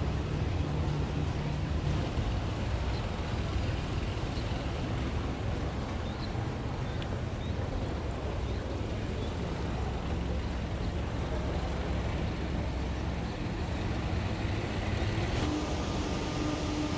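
Steady low rumble of a vehicle in motion. About fifteen seconds in, a steady mechanical hum comes in on top.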